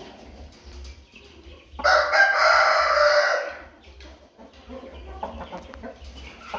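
A rooster crowing once, a loud harsh call lasting nearly two seconds that starts about two seconds in, with fainter clucking before and after.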